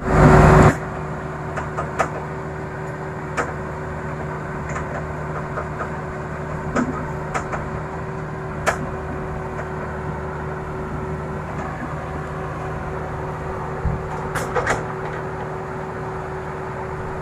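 Heavy diesel engine running steadily at a constant speed, a steady hum, with scattered clanks and knocks. A loud burst of noise fills the first second.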